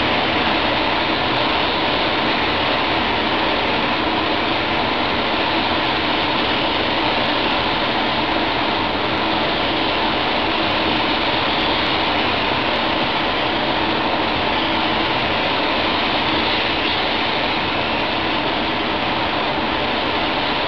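Steady rush of air in a paint spray booth with a light hum, mixed with the hiss of a SATAjet 4000 spray gun atomising paint.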